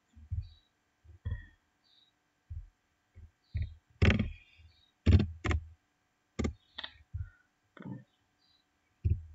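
Computer mouse clicking at an irregular pace with low thumps against the desk, about a dozen short clicks and knocks, a few of them sharper and louder.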